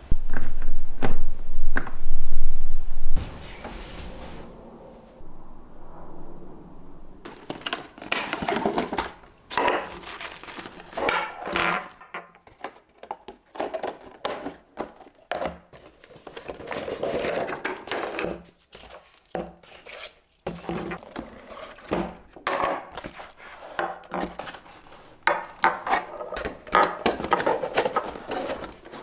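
Hands handling Christmas baubles and their clear plastic and cardboard packaging: crinkling, clicks and light knocks in irregular bursts. A loud low rumble fills the first three seconds.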